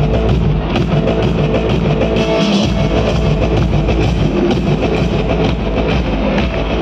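Loud live rock music from a stage band, with drums and guitar, heard from within the audience. The deep bass drops out briefly about two and a half seconds in.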